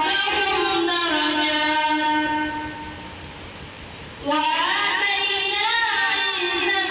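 A boy's voice reciting the Quran in melodic tilawat style, holding one long note, breaking off for nearly two seconds about halfway through, then resuming with ornamented pitch that rises and falls.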